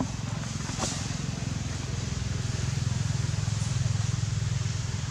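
A motor vehicle's engine running with a low, even throb, growing louder for a couple of seconds in the second half, over a steady outdoor hiss.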